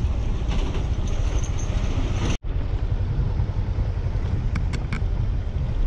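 Motorcycle riding along a dirt road: a steady rumble of engine and tyres mixed with wind buffeting the camera microphone. The sound drops out for an instant about two and a half seconds in.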